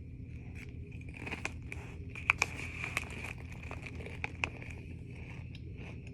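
A potato chip being bitten and chewed: a run of sharp, irregular crunches, the loudest about two seconds in.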